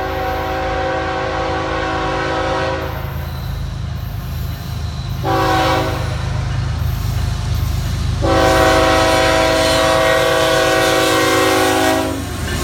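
Florida East Coast GE ES44C4 locomotive's air horn sounding for a grade crossing: a long blast that ends about three seconds in, a short blast, then a long blast of about four seconds. A low rumble from the approaching train runs underneath.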